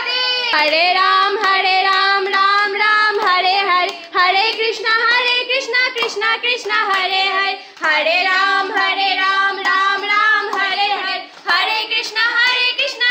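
Several young women singing a Hindu devotional hymn together in high voices, with held notes, and some hand clapping along.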